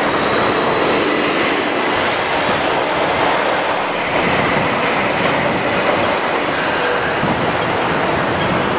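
Light rail train running along the track, its wheels squealing thinly, with a short hiss about six and a half seconds in.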